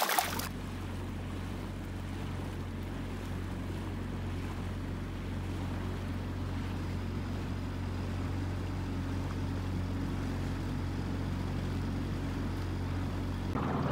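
Outboard motor of a small dinghy running at a steady cruise, a low even drone, with faint water noise along the hull.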